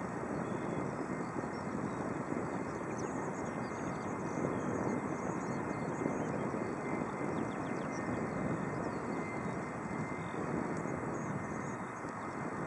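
Airbus A319 airliner's jet engines running at low power as it taxis: a steady rush with a thin high whine.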